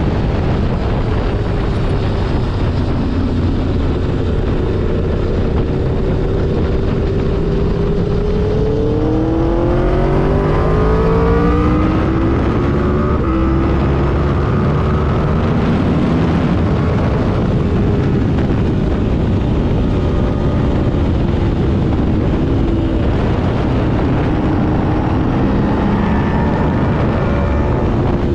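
Aprilia RSV4's V4 engine running under way, with a steady rush of wind and road noise. About eight seconds in it revs up hard, the pitch climbing for a few seconds as it accelerates, then drops back and eases down to a steadier cruise.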